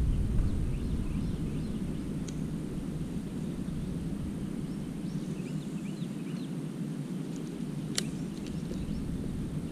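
Open-air ambience at a pond: a low wind rumble on the microphone, heavier at first, with faint scattered bird chirps and one sharp click about eight seconds in.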